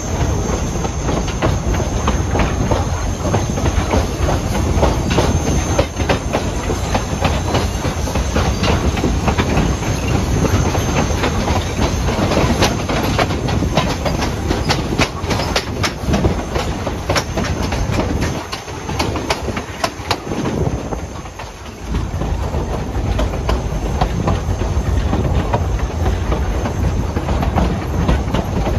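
Riding noise of a narrow-gauge East Broad Top train car rolling along the track: a steady rumble with many sharp clicks of the wheels over the rail, and a thin high tone throughout. The rumble eases for a few seconds about eighteen seconds in, then returns.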